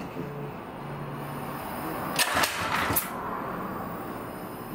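Small 99cc single-cylinder engine being pull-started on HHO and hexane with no air intake, firing three sharp bangs a little over two seconds in. The bangs are expected because the engine is not timed for HHO.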